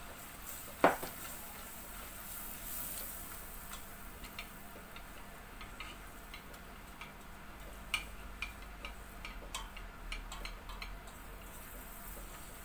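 A silicone whisk ticks and scrapes against a stainless steel pot as flour is stirred and toasted in melted butter, with a faint sizzle early on. One sharp clink rings out about a second in, the loudest sound.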